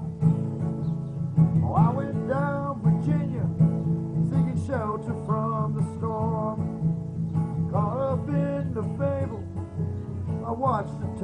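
Live cover music led by a strummed acoustic guitar, with a bending melody line over it in four short phrases.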